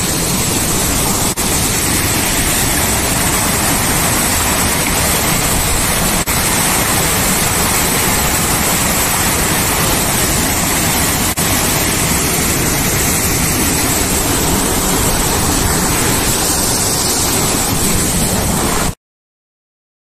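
Steady rush of a mountain waterfall and a stream cascading over rock, cutting off abruptly near the end.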